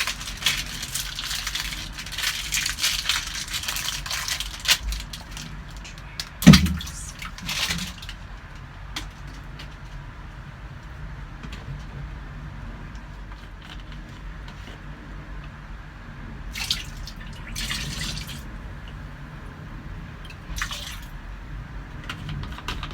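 Liquid pouring and splashing into the wash tub of a twin-tub washing machine for the first few seconds, with one loud knock about six seconds in, then a few short splashes.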